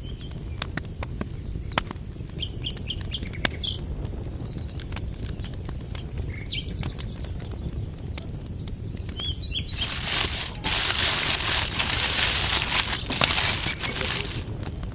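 Birds chirping over a low outdoor rumble, with a faint steady high tone and scattered light clicks. About ten seconds in, a loud hiss sets in and lasts some five seconds before dropping away.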